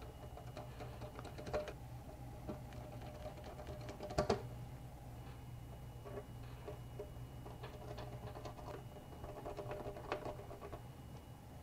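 Faint small clicks and taps of a screwdriver turning small hinge screws into a laptop's metal hinges, the sharpest about four seconds in, over a steady low hum.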